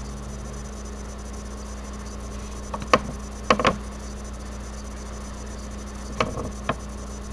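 A few short clicks and taps of trading cards being handled, around three seconds in and again around six seconds in, over a steady electrical hum.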